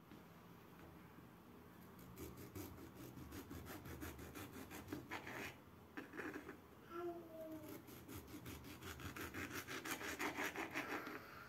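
Serrated knife sawing through a tomato onto a bamboo cutting board: quick, even back-and-forth strokes in two spells of slicing, the second louder. A brief pitched squeak about halfway through.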